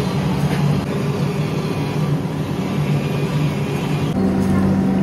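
A steady low mechanical hum, which changes to a single steadier tone about four seconds in.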